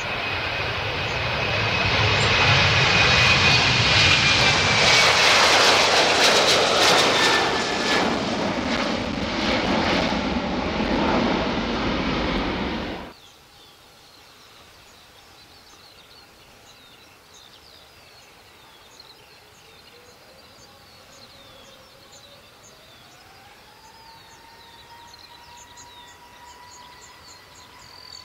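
Ryanair Boeing 737-800's jet engines running loud at high power, a slowly falling whine over a dense roar, building for a few seconds and then cutting off abruptly about 13 seconds in. After that, quiet outdoor background with faint high chirps and a faint tone gliding upward.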